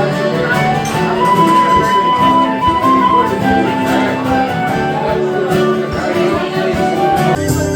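Live instrumental music in a pub: a traditional-style tune played on acoustic instruments, with a held melody note about a second in. The music changes abruptly near the end.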